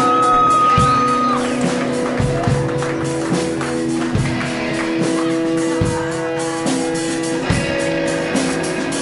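Live rock band playing: sustained guitar notes over drums and cymbals, with one long high note held through the first second or so.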